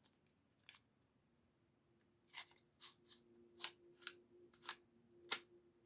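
Faint metallic clicks and scrapes, about eight over three seconds, as the slide of a Glock 26 pistol is worked back onto its frame.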